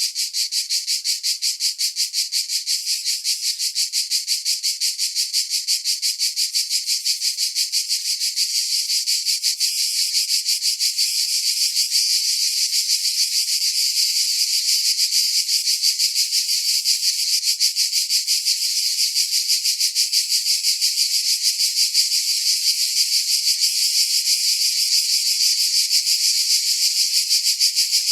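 Mediterranean cicadas singing: a continuous high-pitched buzz with a fast, even pulse, growing slightly louder about a third of the way in.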